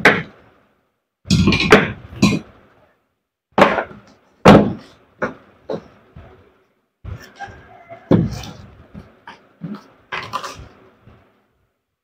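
Sharp metal knocks, about eight at uneven spacing, some with a brief ring, as a metal rod strikes parts of a DeWalt DW801 angle grinder.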